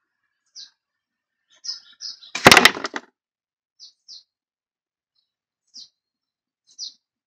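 Small birds chirping in short, high calls scattered throughout. About two and a half seconds in comes a loud, sharp rattling clatter lasting under a second.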